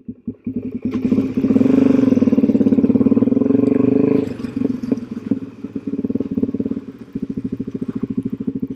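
2009 Suzuki DRZ400SM's single-cylinder four-stroke engine pulling away: the firing pulses get louder about a second in under throttle, hold for about three seconds, then ease back to a steady, lower run.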